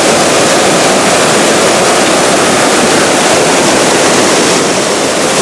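Loud, steady rush of a tumbling mountain trout creek's water.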